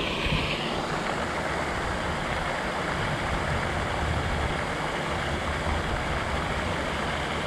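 Steady, even rush of falling water from a pond's spray fountain.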